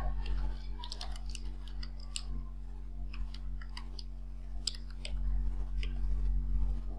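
Computer keyboard keys clicking in irregular runs of typing, over a steady low electrical hum.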